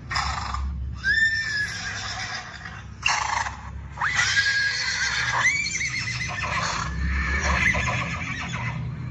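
Recorded horse whinnying: a shorter neigh about a second in, then a longer, wavering whinny from about four seconds in.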